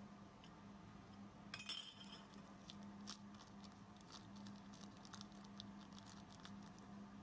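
Near silence with a steady low hum. A light clink comes about a second and a half in, then scattered soft clicks.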